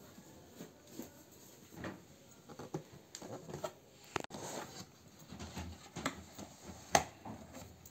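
Cardboard cake box being handled and its flaps opened: scattered light scraping, rustling and tapping, with a sharper knock about seven seconds in.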